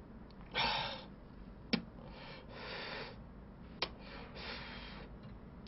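A man breathing out three times, slow breathy puffs a couple of seconds apart, with two short sharp clicks between them.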